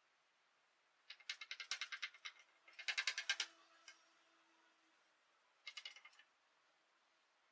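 Skeleton marionette clattering as it dances, rapid bursts of hard clicks from its wooden feet and limbs. Three runs of quick clicks, about eight to ten a second, about a second in, around three seconds in (the loudest), and a short run near the end.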